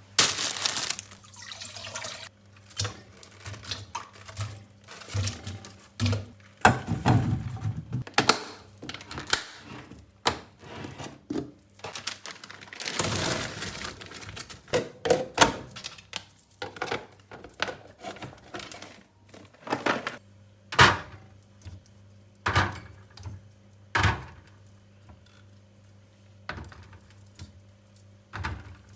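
Irregular knocks, clicks and clatters of packaged food and drinks being handled and set into a fridge, with rustling of packaging in between and a longer rustle about halfway through.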